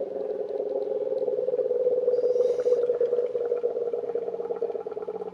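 Trapped air bubbling and gurgling up out of the coolant in a Yanmar 2GM20F marine diesel's freshwater cooling system through the filler neck, a rapid, continuous gurgle: an airlock clearing after the coolant refill.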